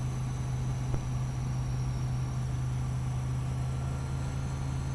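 Steady low drone of a light aircraft's engine and propeller heard inside the cockpit, with a faint click about a second in.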